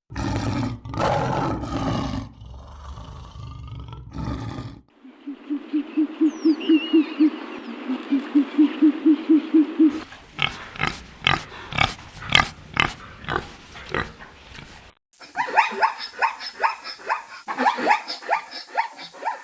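Several different animal sounds cut one after another. First comes a loud rough noise for about five seconds. Then comes a rapid pulsing call, then a run of sharp strokes at about three a second, and near the end a quick series of short, high-pitched calls.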